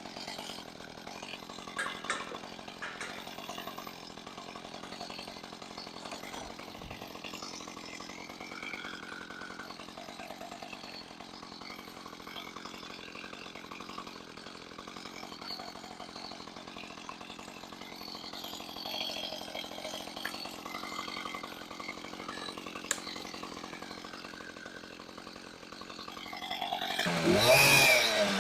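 A chainsaw engine running steadily at a moderate level. Near the end a chainsaw close by revs loudly, its pitch swooping up and down.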